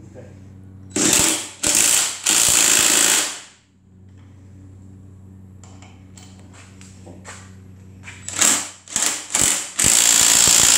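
Cordless impact driver running lug nuts onto a golf cart wheel in short, loud bursts: three bursts from about a second in to about three and a half seconds, then four more from about eight seconds in, the last still going at the end. A few faint clicks in the quiet stretch between them.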